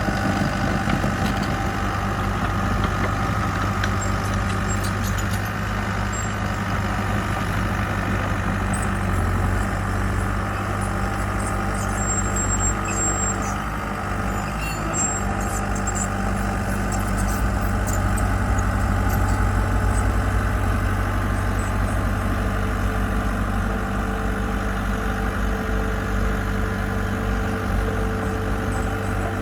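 Diesel engine of heavy construction machinery running steadily at an even pitch.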